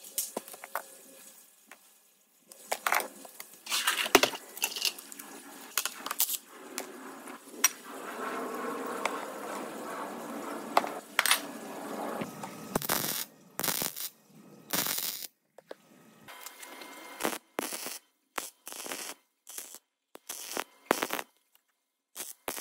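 Metal tools and steel parts clinking, clattering and knocking while a wheel hub is worked off a steering knuckle's spindle. In the second half the sounds come in short snippets broken by sudden silences.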